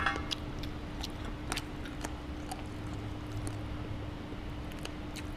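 A person chewing grilled pork at a mukbang meal, with faint scattered small clicks, over a steady low hum.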